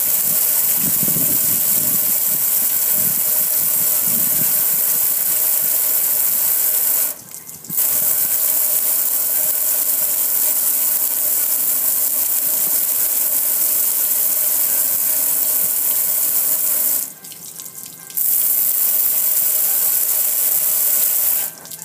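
A strong jet of water spraying onto a metal gas grill: a loud, steady hiss with a faint steady hum under it. The spray stops twice, for about half a second and then about a second, and cuts off again near the end.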